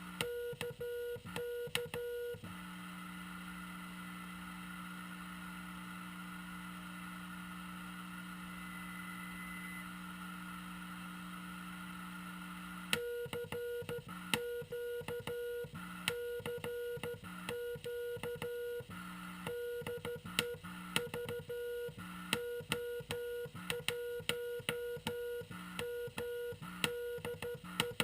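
Morse code tone of about 500 Hz from a Frog Sound QRP CW transceiver on 7.023 MHz, keyed on and off in irregular dots and dashes with a click on each edge. About two seconds in the keying stops for roughly ten seconds, leaving a steady low hum and receiver hiss, then the code starts again.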